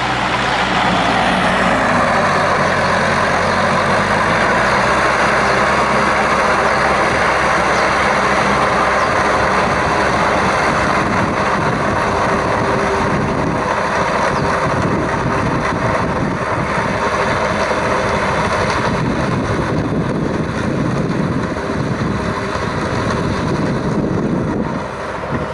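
A farm tractor's engine running steadily under load as it drives a rotary tiller through wet rice-field mud.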